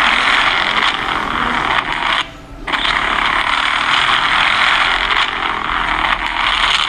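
A motorcycle's engine and exhaust running loud in a street clip, played back through a phone's small speaker, so it comes across as a harsh, thin noise with little bass. The sound cuts out briefly a little over two seconds in.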